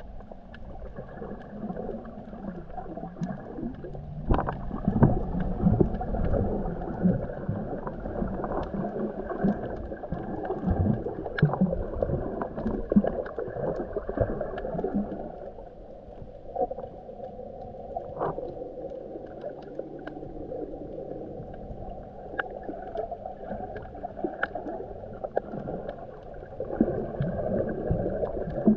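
Muffled underwater sound from a camera submerged in shallow sea water: a low wash and gurgle of moving water with scattered sharp clicks and crackles, louder for a few seconds early on and again near the end.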